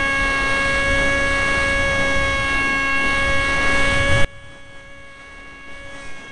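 Onboard sound of a small foam RC jet's electric motor and propeller: a steady high whine over rushing air noise that cuts off suddenly about four seconds in, as the plane comes down into the grass. A much fainter whine at the same pitch continues after the cut.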